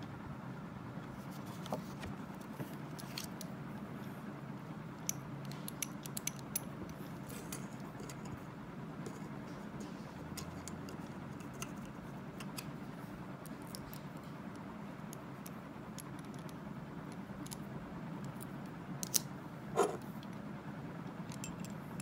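Small metallic clicks and light rattles from a St Guchi disc detainer padlock being handled in the hands, with two louder clicks close together near the end. A steady low hum runs underneath.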